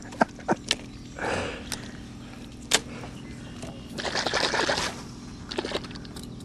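A hooked bass being reeled in to the side of a boat: scattered sharp clicks and two short rushes of noise, one about a second in and a longer one about four seconds in, from the fishing reel and the fish at the water's surface.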